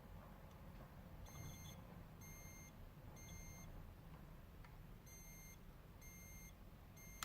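Old smoke detector sounding its test alarm: the faintest high beeps, about half a second each, in a group of three, a pause, then three more. The alarm is far too weak to wake anyone at night, a sign the unit has failed and needs replacing.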